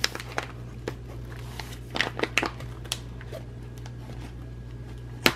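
Foil-lined coffee bag crinkling and crackling in the hands as it is worked open, with one sharp, louder crackle near the end.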